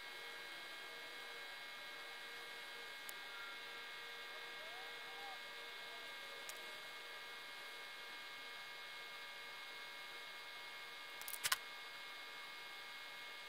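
Faint steady electrical hum made up of several constant tones, with a few light clicks scattered through it and a short cluster of sharper clicks near the end.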